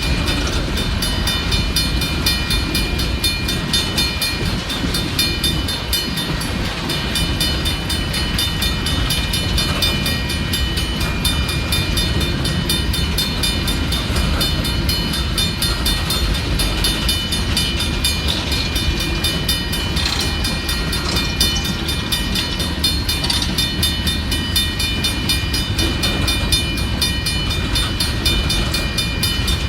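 Union Pacific coal train's freight cars rolling steadily past on the rails: a continuous rumble of wheels on track with steady high-pitched ringing tones above it.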